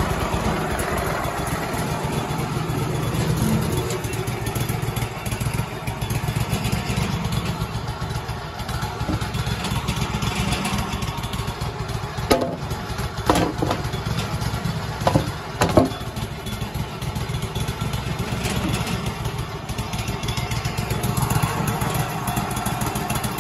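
Wood-Mizer LT35 sawmill's engine running steadily, with four sharp knocks about halfway through.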